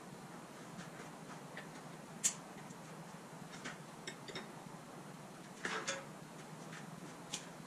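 Sparse light metallic clicks and clinks from hand work at the car's front suspension and steering: a sharp click about two seconds in, a short cluster of clinks near six seconds and another click near the end, over a steady low hum.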